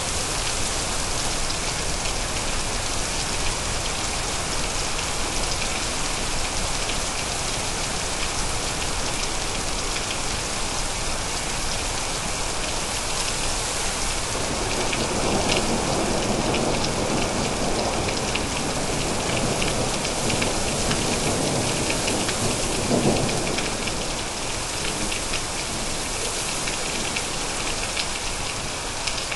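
Steady rain falling, with a roll of thunder rumbling in about halfway through, swelling and then fading away about ten seconds later.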